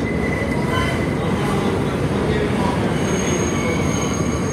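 Siemens-equipped R160B subway car running on the track, heard from inside the car: a steady rumble of wheels on rail with thin squealing tones that come and go, a high-pitched squeal holding through the last second and a half.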